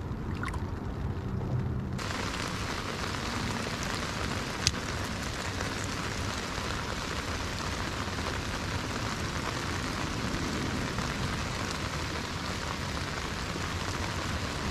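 Steady rain falling on lake water and the kayak, an even hiss that starts abruptly about two seconds in. A single sharp click sounds near five seconds in.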